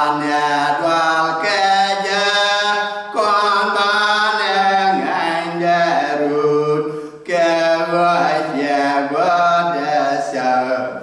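A man singing a chant-like melody in long held notes, with short pauses about three and seven seconds in.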